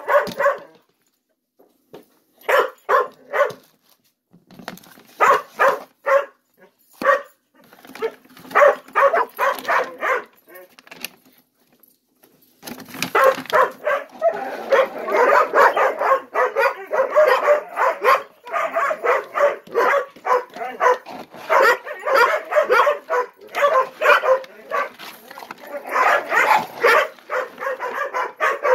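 Ten-month-old Gollie puppies barking and yipping in short bursts as they wait to be fed. At first the barks come in scattered clusters with pauses between them; from about thirteen seconds in they run together into a dense, overlapping chorus of barking.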